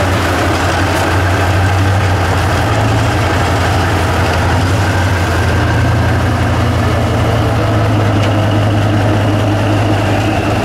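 Diesel engine of a Tatra 6x6 trial truck running with a steady low drone as the truck crawls slowly over a rough slope.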